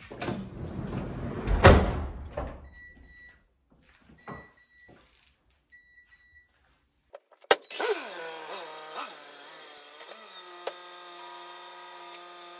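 A minivan's sliding side door rolls open and stops with a thud. Three short high beeps follow, about a second and a half apart. After a cut, background music plays.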